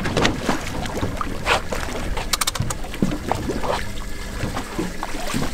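Water slapping against a small boat's hull, with wind and scattered clicks and knocks while a fish is reeled in on rod and reel. There is a quick run of sharp clicks about halfway through.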